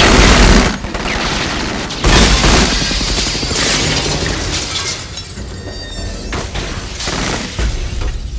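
Film sound effects: a loud gunshot with a booming tail, then about two seconds in a heavy crash of shattering glass that slowly dies away, with scattered smaller hits near the end.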